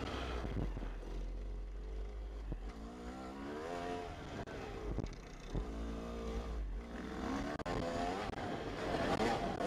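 Yamaha YZ250 two-stroke single-cylinder dirt bike engine running under load on a trail, its pitch climbing as the rider accelerates about three seconds in and again in the last few seconds, with scattered knocks and clatter from the ride.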